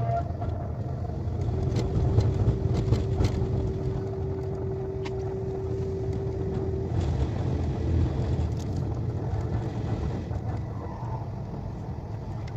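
KTX high-speed train running, a steady low rumble with scattered clicks and a held tone for about five seconds in the first half.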